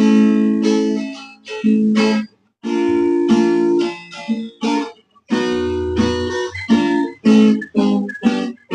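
Acoustic guitar (violão) playing a series of strummed chords, each one ringing with several notes and then stopping. The chords come with short gaps between them and quicken into shorter strokes near the end, as a demonstration of barre chords sounding clear.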